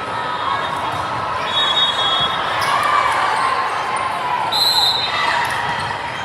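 Echoing crowd chatter in a gymnasium during a volleyball rally. Short high-pitched squeaks come twice, about a second and a half in and near five seconds, typical of sneakers on the court.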